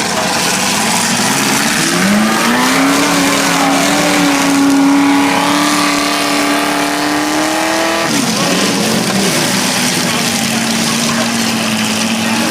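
Demolition derby car engines running under a steady din. One engine revs up about two seconds in, holds high for several seconds, drops back about eight seconds in, then runs steadily lower and revs again near the end.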